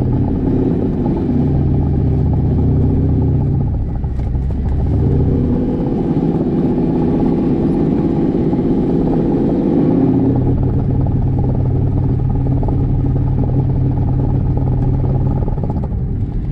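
Corsair V8 aircraft engine and propeller of an experimental Cessna 172 running at taxi power, heard from inside the cockpit. The engine speeds up a little about five seconds in and settles back to a lower idle about ten seconds in.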